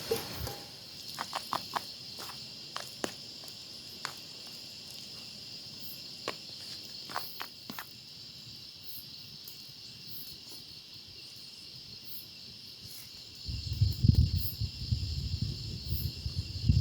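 Steady high-pitched chorus of crickets and other insects, with a few scattered sharp clicks in the first half. Near the end, a loud, uneven low rumbling noise sets in over the insects.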